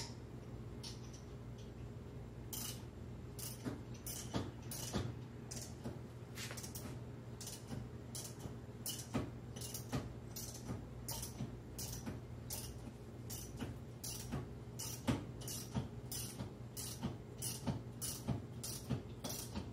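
Socket wrench ratchet clicking in short strokes as a loosened clutch nut is backed off, the clicks sparse at first and then about two a second from partway through.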